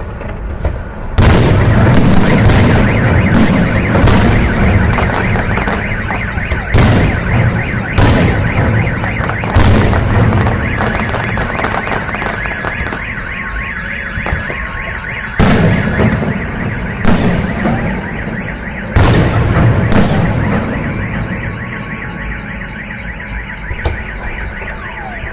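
Fireworks going off in a string of loud bangs, about a dozen spread unevenly over twenty seconds, each trailing off in crackle over a continuous din. An alarm sounds through it.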